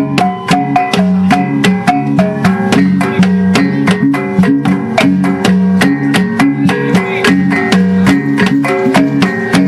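Background music: plucked string notes over a steady, quick percussive beat of about four ticks a second.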